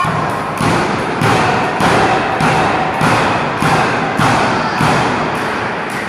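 Wrestling crowd clapping and stomping in a steady rhythm, a little under two beats a second, sharp thuds and claps echoing in a large hall.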